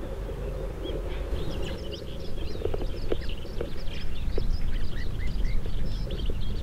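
Small birds chirping and twittering in quick, busy calls, starting about a second and a half in and continuing, over a steady low rumble.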